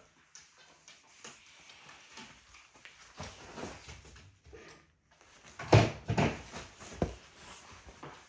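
Capuchin monkeys scuffling and bounding about on a bed: the bedding rustles, with a few heavy thumps on the mattress about two-thirds of the way in, the loudest sounds here.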